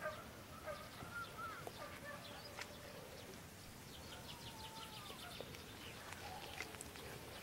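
Faint distant animal calls, several short pitched calls, some sliding in pitch, over quiet open-air background.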